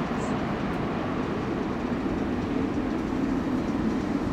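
Airbus A330-900neo's Rolls-Royce Trent 7000 turbofans heard as a steady, even jet engine rumble as the airliner flares and lands.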